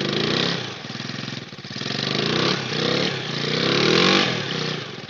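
A four-wheeler (ATV) engine revving hard in several surges, its pitch rising and falling, as the quad is driven through a deep mud hole and bogs down, buried in the mud.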